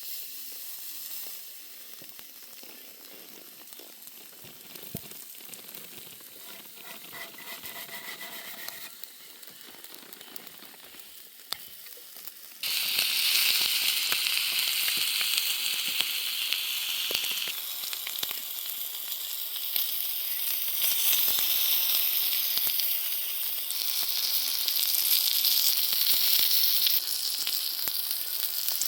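Steak sizzling on a very hot steak stone, with small crackles and spits. The sizzle is fainter at first, then jumps suddenly to a loud, bright sizzle about halfway through.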